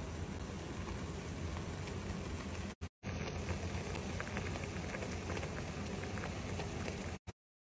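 Water with herbs at a rolling boil in a saucepan, bubbling and crackling steadily. The sound drops out briefly about three seconds in and cuts off suddenly near the end.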